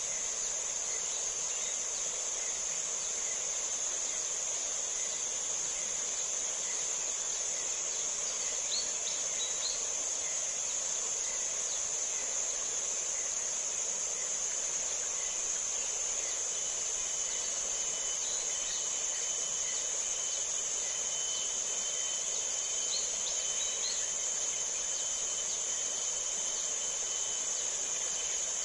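A steady, high-pitched chorus of insects, an even buzz with no breaks. A few faint short chirps come in around a third of the way in and again near the end.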